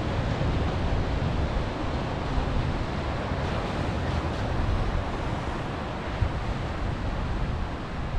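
Sea surf washing over a rocky shore, with wind rumbling steadily on the microphone.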